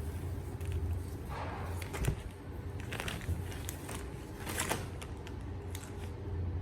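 Packaging being handled by hand: scattered light clicks and a brief rustle, the sharpest click about two seconds in and a cluster a little before the five-second mark, over a steady low hum.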